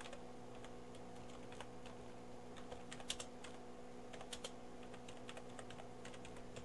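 Faint typing on a computer keyboard: irregular key clicks over a steady low hum.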